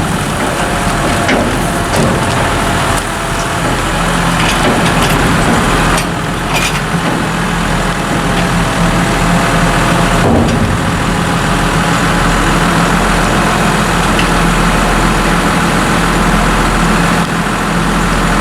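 Tractor engine running steadily while a tipping trailer's body is lowered after tipping a load of chopped maize silage. There are a few knocks and clanks in the first couple of seconds and another about ten seconds in.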